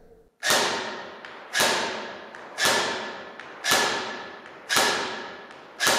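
Six single airsoft shots from an Umarex HK416A5 Sportsline electric airsoft rifle, about a second apart, heard from the target end of a 50 m indoor range. Each is a sharp thud with a long echoing tail.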